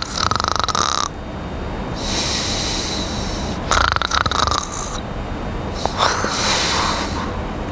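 A man snoring in his sleep: a rasping snore about every two to three seconds, with a hissing breath out between them.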